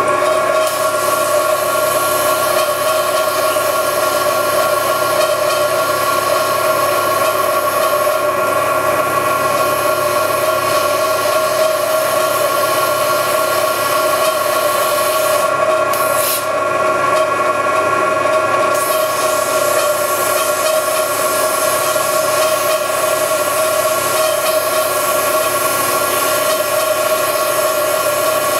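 Milling machine cutting a slot with a T-slot cutter fed slowly, a steady whine in two tones under the hiss of a compressed-air blow gun clearing the chips. The air stops for a few seconds a little past halfway, then comes back.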